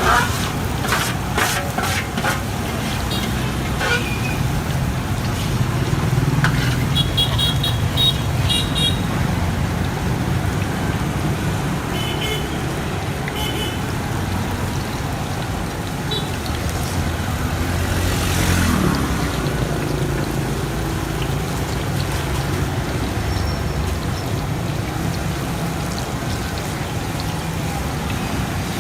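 Busy street traffic running steadily, with vehicle horns beeping a few times in short bursts around the middle.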